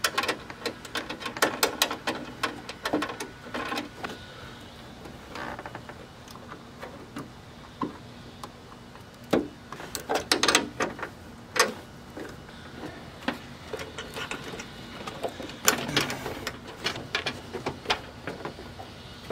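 Quick clicks and rattles of plastic wiring connectors and trim being handled and pressed into place in a car's trunk lid, in three bouts: at the start, around the middle, and again near the end.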